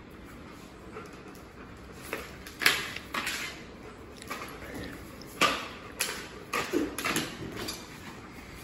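Plastic water bottle crackling and crunching in two dogs' mouths as they grab and tug at it, in irregular sharp snaps, the loudest about a third of the way in and again past the middle, with claws clicking on a tile floor.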